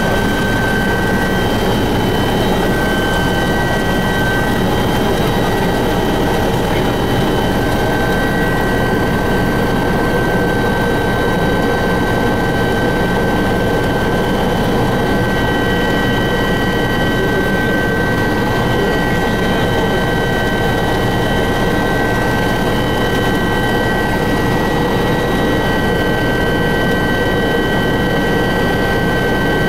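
Helicopter engine and rotor noise heard from inside the cabin in flight: a steady, loud din with a constant high whine running through it.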